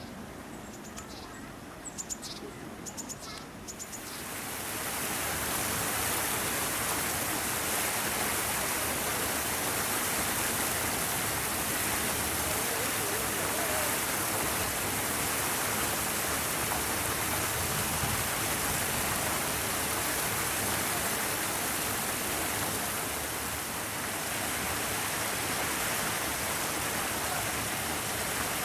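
A steady, even rushing hiss starts about four seconds in and carries on unchanged. A few faint, short high chirps come just before it.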